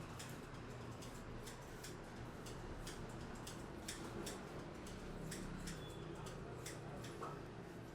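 Sharp, irregular clicks and snaps, about two to three a second, from a barber's hands working over a client's head and hair during a head massage.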